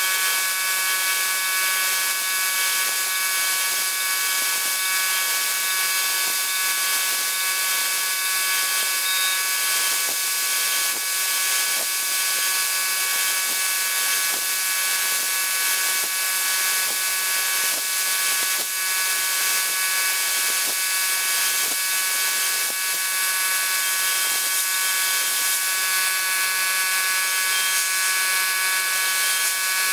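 CNC router spindle running at high speed with a steady whine of several tones, over the loud hiss of a compressed-air and oil blast. A 3 mm two-flute carbide endmill is milling HDPE sheet.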